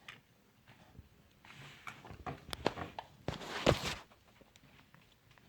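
Light clicks and knocks of a partly disassembled lawn mower engine's crankshaft, camshaft and valve tappets being turned over by hand, with a louder, rougher rattle near the end.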